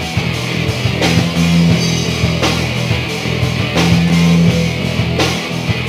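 Live rock band playing an instrumental passage: electric guitar chords over a drum kit, with a strong accented hit about every second and a half.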